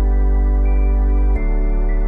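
Background music: soft, new-age-style sustained chords with no singing, changing to a new chord about one and a half seconds in.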